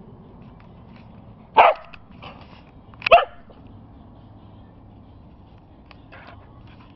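A dog barks twice in play, with the two short, loud barks about a second and a half apart.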